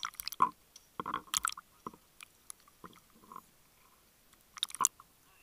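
Irregular clusters of sharp clicks and crackles heard underwater, loudest about half a second in, around a second and a half in, and near the end.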